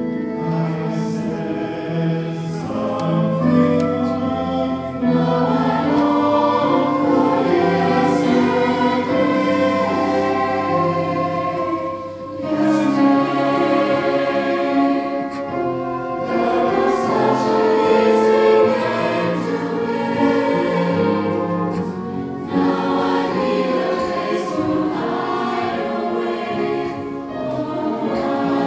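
Mixed choir of men's and women's voices singing in harmony, in long held phrases with short breaks between them.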